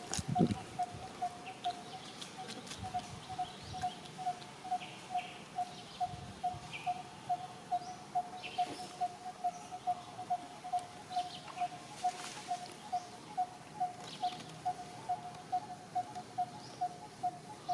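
A bird repeating one short, mid-pitched note over and over, evenly, about two or three times a second, with faint scattered higher chirps from other birds.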